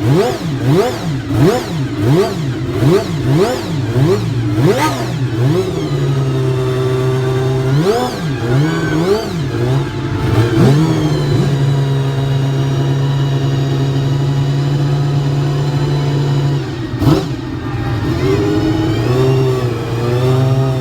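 Ferrari racing car engine being revved: a quick run of throttle blips, a little more than one a second, then the revs held steady for several seconds, a brief cut about 17 seconds in, and more blips near the end.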